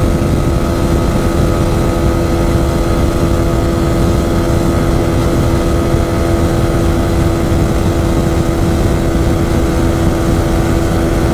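Yamaha R15 V4's 155 cc single-cylinder engine held at steady high revs at about 140 km/h, a constant drone with no gear changes, over heavy wind rush on the microphone.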